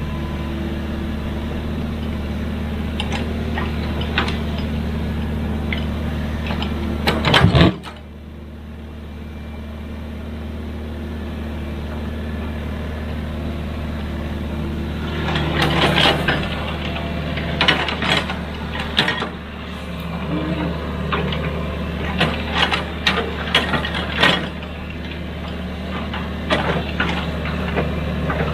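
Excavator's diesel engine running steadily under work, with scattered sharp knocks and clanks. A loud burst of knocks comes about seven seconds in, then the level drops suddenly, and the knocks return more often in the second half.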